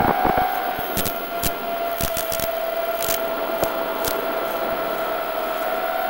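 A QAV210 racing quadcopter's RCX H2205 motors and DAL tri-blade props whining at a fairly steady throttle. The pitch dips slightly just after the start and rises a little near the end, with scattered sharp crackles and clicks.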